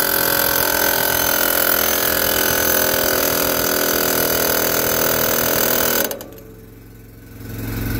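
Pneumatic air hammer pounding rapidly on a garden tractor's seized front steering spindle, driving it down out of the axle. The hammering stops abruptly about six seconds in, leaving a low steady hum.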